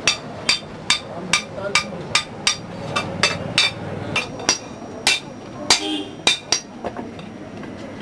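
Blacksmith's hand hammer striking hot metal on an anvil in quick, regular blows, about two to three a second, each a short metallic ring.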